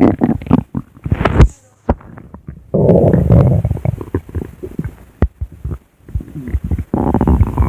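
Stomach growling: irregular short gurgles and pops, with two longer rumbles, one about three seconds in and one near the end.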